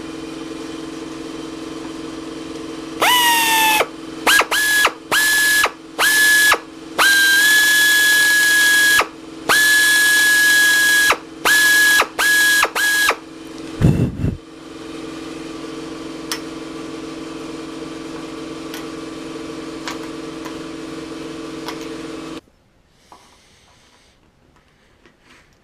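A drill spinning up and run in about ten short trigger bursts, a high whine each time, drilling out badly set rivets in aluminium aircraft structure. A steady machine hum runs underneath and cuts off about 22 seconds in.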